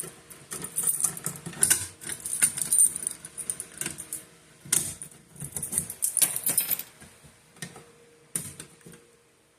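Manual fire alarm pull station being handled: irregular clicks, rattles and scrapes from its handle and housing, dying away near the end.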